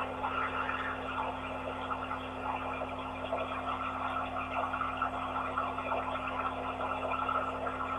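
Muffled, even noise of a touchless car wash played back through a small phone speaker, thin and boxy, with a steady electrical hum underneath.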